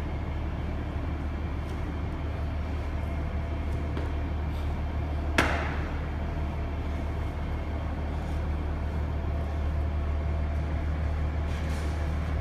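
A steady low rumble, with one sharp thud about five seconds in: feet landing on the gym floor as a man comes down out of a handstand after handstand push-ups.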